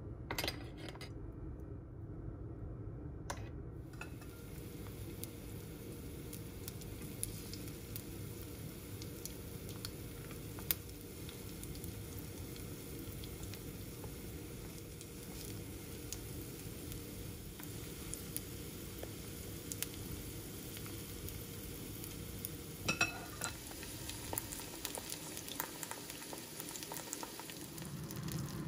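Raw shrimp frying in olive oil in a nonstick skillet: a steady sizzle with scattered small pops and a few light knocks.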